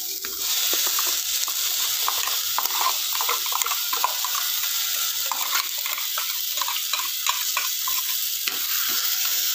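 Pumpkin pieces and green chillies sizzling in a hot clay pot, the hiss growing louder about half a second in. Over it, a steel spoon scrapes and taps against a steel bowl as thick ground coconut paste is spooned in.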